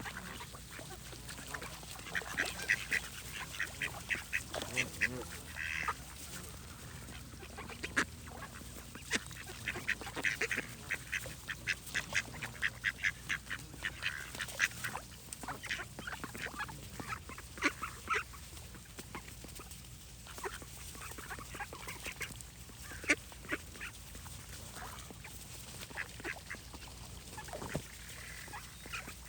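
Ducks quacking in quick runs of short, high calls, about three or four a second, with short pauses between the runs.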